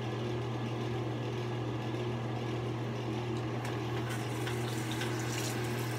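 Water running steadily from a bathroom tap, over a constant low hum, with a few light splashes and clicks in the last couple of seconds.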